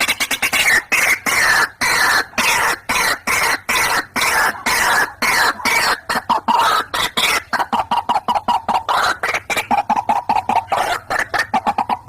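White-breasted waterhen call played as a bird-trapping lure: a rapid run of short repeated notes, several a second. The notes slide down in pitch over the first half, then hold on a steady lower note and come faster towards the end.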